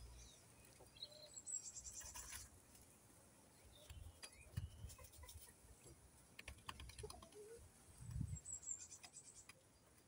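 Coturnix quail dust-bathing in a dish of sand: faint, scattered scratching and rustling clicks of sand and feathers, with a few soft thumps. Two short runs of faint, high, rapid chirping sound in the background, early and near the end.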